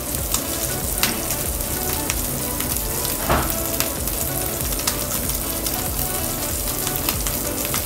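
Small pieces of meat sizzling in hot oil in a small aluminium pan on a gas burner, with a steady frying hiss and scattered pops.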